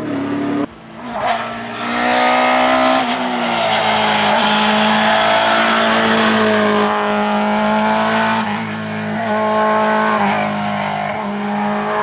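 A hillclimb race car's engine revving hard, held high through a bend, with quick dips and recoveries in pitch as the driver lifts off and shifts gear.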